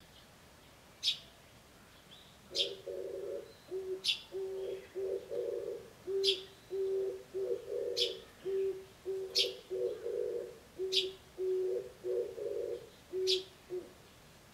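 Eurasian tree sparrow chick giving single short, high chirps every second and a half or so, more feebly than a sparrow chick usually calls. Over them an Oriental turtle dove coos its low, repeated phrase; the cooing starts about two and a half seconds in and stops shortly before the end.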